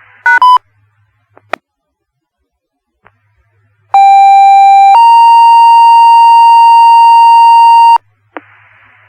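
Fire dispatch two-tone radio page: one steady tone for about a second, then a slightly higher tone held for about three seconds, the tone sequence that sets off the volunteer firefighters' pagers before a voice page. Near the start, two quick beeps over radio hiss.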